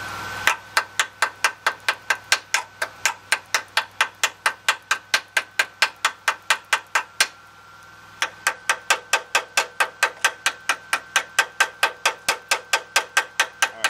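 Chipping hammer tapping the flux slag off fresh stick welds, in quick, even strikes of about four a second. There is a pause of about a second near the middle before the tapping resumes.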